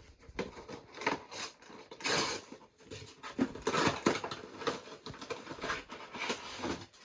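Action-figure packaging being opened by hand: irregular rustling, scraping and clicking of card and plastic, with a longer tearing or rustling noise about two seconds in.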